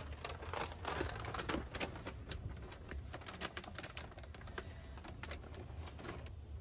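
Rapid, irregular light clicks and rattles over a steady low hum inside a sleeper train carriage. The clicks thin out toward the end.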